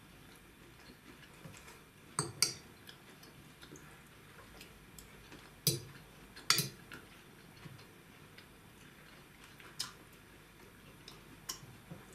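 Metal fork clinking against a plate as it picks up food, a few separate clicks with the loudest about two, five and a half and six and a half seconds in.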